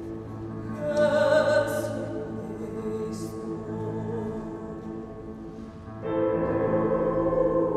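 Mixed choir singing held chords, with a woman's solo voice rising over them about a second in. The choir comes in louder on a new chord about six seconds in.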